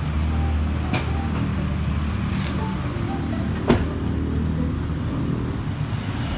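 A car engine idling steadily with an even low hum. A sharp click comes about a second in and a louder knock just before four seconds.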